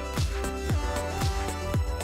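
Background music with a steady beat: a kick drum that drops in pitch on each hit, about two beats a second, under held melodic notes.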